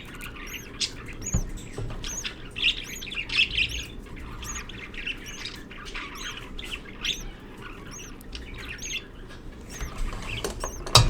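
Budgerigars chattering and squawking, with a thin, high chirp repeating about twice a second.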